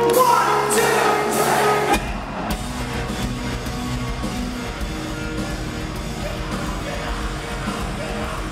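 Rock band playing live in a concert hall, recorded from among the crowd: guitars, drums and vocals. About two seconds in the sound changes abruptly to a dense, bass-heavy wall of the full band.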